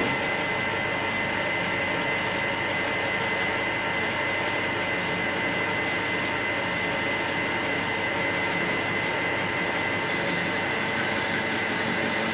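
Metal lathe running steadily while the tool faces a cylinder end plate held in the chuck, with chips flying off. It makes an even mechanical drone with a steady high-pitched whine.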